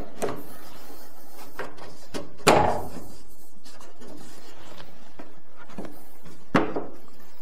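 Quarter-inch MDF panels knocking against a contractor table saw's steel cabinet as their rare-earth magnets snap them into place: a few light clicks, then two sharp knocks, one about two and a half seconds in and one near the end.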